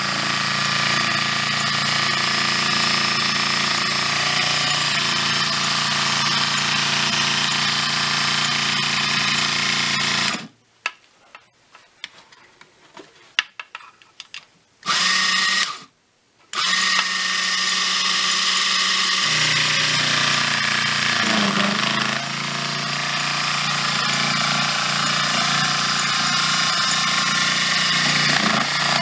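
Unimat 1 toy machine's small electric motor running a drill bit into a block of wood, with a steady whine. It stops about ten seconds in, leaving a few small clicks and knocks, starts briefly about five seconds later, stops again, then runs on steadily.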